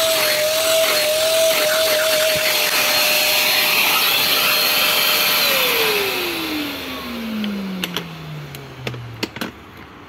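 Krisbow FRVCW12 wet-and-dry vacuum cleaner running with a loud, steady high whine while sucking water out of a soaked mattress. About five and a half seconds in it is switched off, and the motor winds down in a long falling whine. A few clicks and knocks come near the end as the machine's head is handled.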